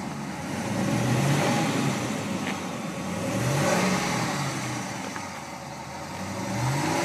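2013 Ram 1500 engine revved up and let back down about three times through its factory dual exhaust with the stock mufflers, the pitch rising and falling with each rev.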